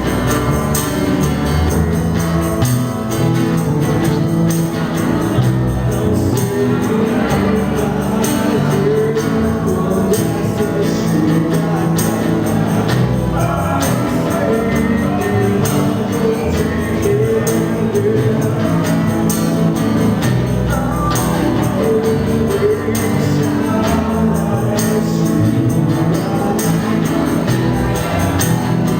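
Live acoustic band playing: acoustic instruments and a singing voice over a steady cajón beat.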